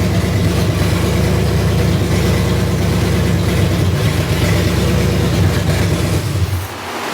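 Ford FE big-block V8 running steadily on open headers with no exhaust system, during flat-tappet camshaft break-in. It is switched off near the end and the engine sound cuts out.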